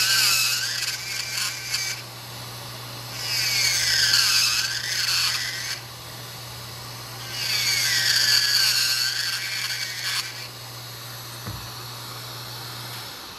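Dental lab micromotor handpiece with a bur grinding into a plaster model, in three separate bursts a few seconds apart, cutting three reference notches. A steady low hum from the running micromotor lies under the grinding and stops near the end.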